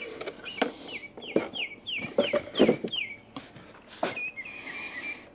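A bird calling: a quick run of about eight down-slurred notes, then a string of shorter notes near the end, with a few scattered knocks.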